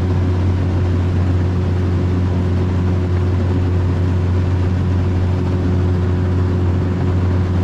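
A boat's motor running at a steady speed under way, a constant low hum with water and wind noise over it.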